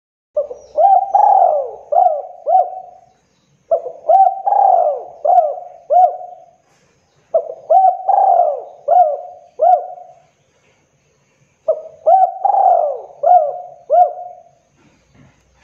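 Spotted dove (tekukur) cooing: four repeated phrases, each a few seconds long and made of about five rising-and-falling coos, with short pauses between them.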